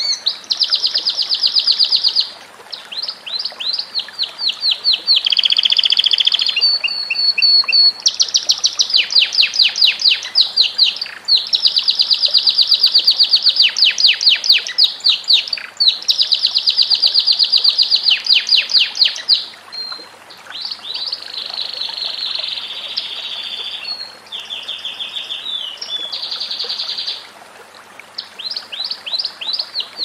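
Domestic canary singing a long, continuous song. It is made of trilled phrases, each a fast run of one repeated note, changing speed and pitch from phrase to phrase, with a few brief breaks between phrases.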